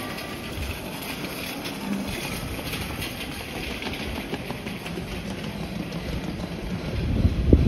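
Steady ambient din of a covered shopping arcade, with a low rumble of wind on the microphone swelling near the end.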